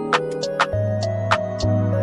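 Background music: sustained keyboard-like notes over a light beat of sharp percussive hits, with a bass line coming in under a second in.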